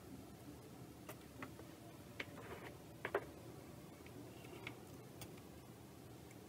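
Faint, scattered small clicks and taps from handling a circuit board in a bench board holder: a metal pick working at the board, then the board being turned over in its holder. The loudest is a quick double click about three seconds in.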